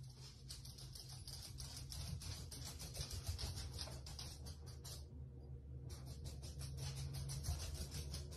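Dogs' claws ticking and scratching on a hard floor in quick faint patters, pausing for about a second a little past the middle.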